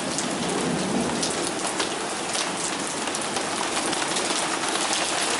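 Heavy thunderstorm rain pouring down, with frequent sharp ticks of drops striking a hard surface. A brief low rumble of thunder comes about a second in.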